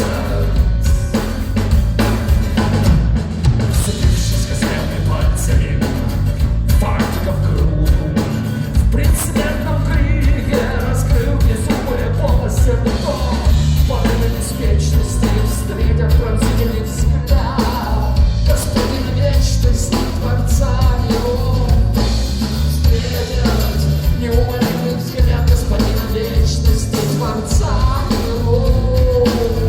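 Live rock band playing a song with drum kit, bass and guitars, a vocalist singing over a steady beat.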